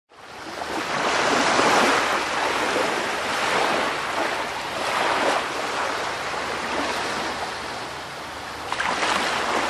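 Sea waves washing in: a steady rush of water that swells and eases every few seconds, fading in at the start.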